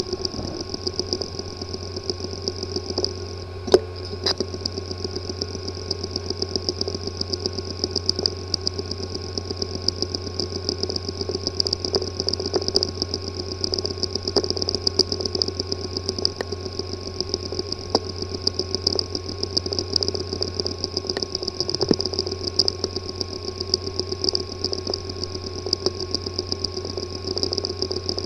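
Hard drive with a physically damaged disk assembly running: a steady mechanical buzz with fast, irregular ticking and a louder click about four seconds in. The sound is the sign of a damaged head and platter assembly that leaves the drive inaccessible.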